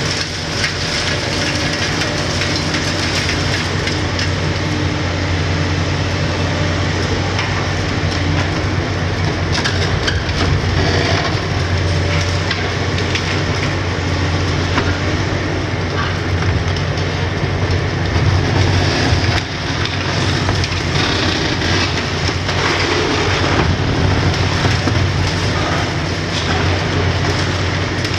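Hitachi 870 LCR demolition excavator's six-cylinder Isuzu diesel running under load while its hydraulic crusher bites into a concrete building. Concrete crunches and cracks and rubble falls throughout, with louder crunches about two-thirds of the way in.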